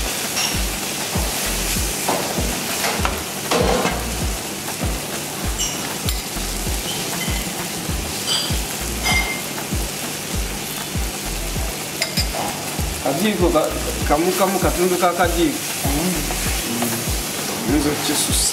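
Chopped vegetables sizzling in hot oil in a pan while a spatula stirs them.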